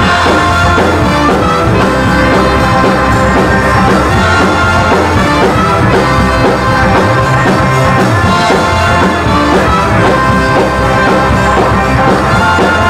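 Ska-punk band playing loud and continuous, with drum kit and a brass part over the rhythm section.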